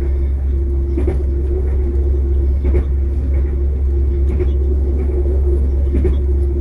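Passenger train running, heard from inside the carriage: a steady low rumble with a constant hum, and a sharp click from the wheels on the track about every second and a half.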